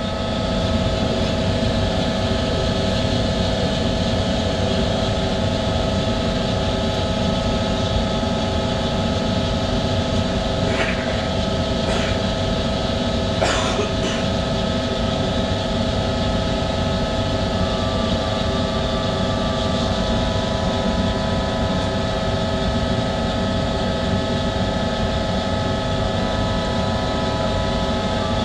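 Powder coating equipment running while the electrostatic gun sprays powder: a steady machine drone with several held hum tones under a rush of moving air. A few faint clicks come about halfway through.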